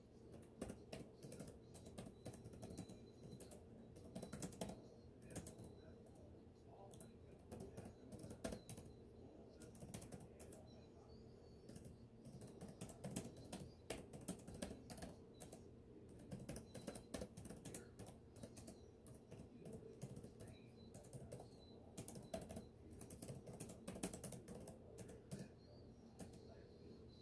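Typing on a computer keyboard: irregular runs of quick keystroke clicks with short pauses between them, over a faint steady hum.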